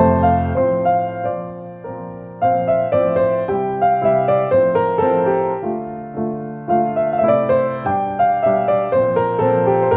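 Piano music: a solo piano playing a gentle melody with chords, notes struck in quick succession, with a short lull about two seconds in.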